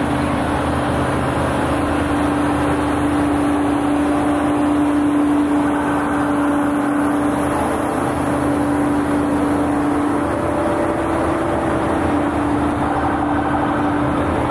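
A line of large diesel vehicles driving slowly past: a Case IH Quadtrac 580 tracked tractor, then a semi truck, engines running with a steady hum throughout.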